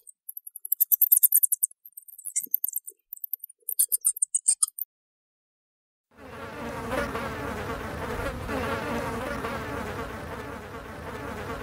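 Bat calls: runs of rapid, very high-pitched chirps for the first four and a half seconds. Then, after a second and a half of silence, a housefly buzzing steadily in flight, a continuous drone that lasts to the end.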